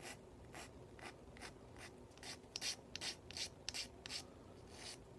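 Small hand file rasping in short, quick strokes across a seam on a model car engine's oil pan, being filed smooth. The strokes are faint, about two to three a second, with a brief pause a little before the middle.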